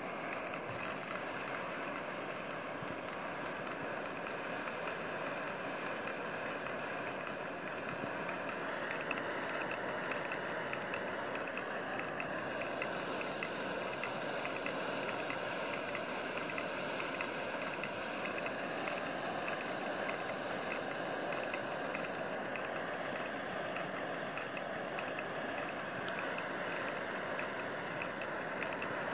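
Multi-cylinder model Stirling engine running steadily, its pistons and linkages making a fast, even mechanical rattle.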